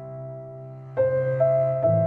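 Slow background music of long held notes, with new notes coming in about a second in and again near the end.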